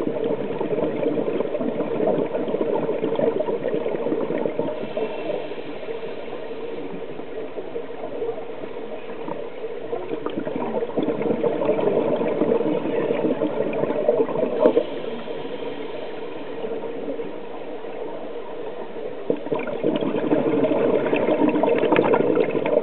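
Underwater bubbling and gurgling from a scuba diver's exhaled air, swelling louder and fading in long waves: loudest near the start, around the middle and near the end.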